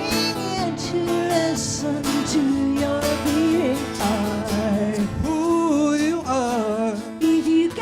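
A live song: a voice singing a wavering, held melody over guitar accompaniment.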